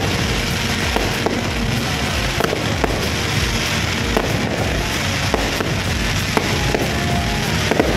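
Aerial fireworks bursting in quick succession: a dense crackling hiss punctuated by irregular sharp bangs and pops.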